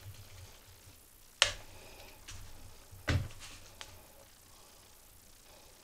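Screwdriver prying at the plastic throttle-trigger housing in a Homelite string trimmer's handle: two sharp clicks about a second and a half apart, with lighter ticks in between.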